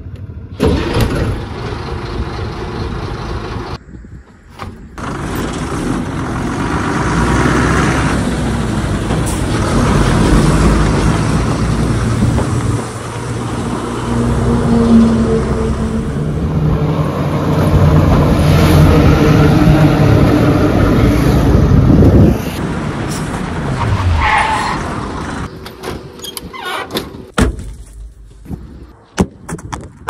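Heavy diesel lorry started at the cab's ignition switch, then its engine running and revving as the truck pulls away. About three quarters of the way through the engine sound drops sharply and winds down in pitch, leaving scattered clicks and knocks.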